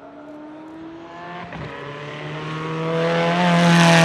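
Zenvo TSR-S's twin-supercharged V8 accelerating hard as the car drives up and past, with one gear change about a second and a half in. The engine note climbs in pitch and grows steadily louder.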